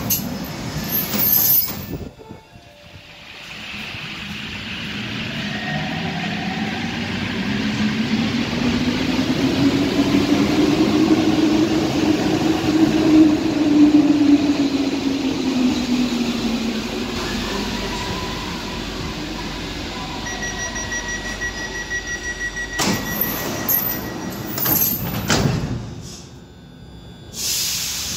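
Rubber-tyred MP14 metro train pulling out: its traction motors whine, rising in pitch and loudness as it speeds up, loudest about halfway through, then sinking away. Before it, the sliding platform doors clatter. Near the end come a rapid high beeping and then loud rushing noise.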